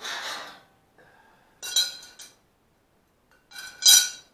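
Loose pieces of steel angle from a crate's shipping frame clinking and ringing as they are handled on a concrete floor: two sharp metallic clinks about two seconds apart, the second the loudest.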